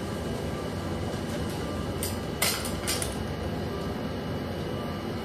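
Steady background hum, with a few short rustles about two to three seconds in.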